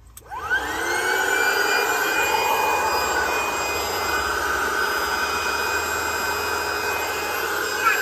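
Electric air pump, run from the car's 12-volt cigarette-lighter socket, switching on with a quick rising whine as its motor spins up. It then runs steadily, blowing up an inflatable pillow.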